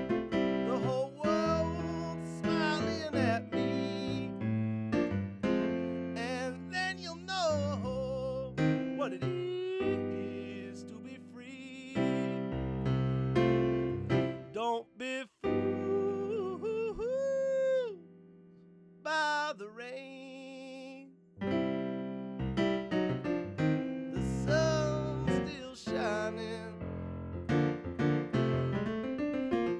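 A man singing over his own digital piano accompaniment. About halfway through, the playing thins to a held chord under long, sliding sung notes, then the full chords pick up again.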